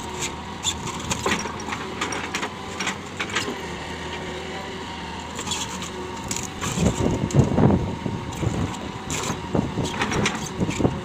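Hitachi 200LC excavator running steadily, with scattered knocks and clanks of metal throughout; louder, rougher stretches come about seven and ten seconds in.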